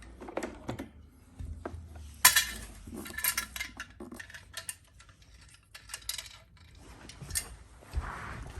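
Irregular clicks, knocks and clatter of hard vacuum cleaner parts being handled, with the sharpest clack about two seconds in.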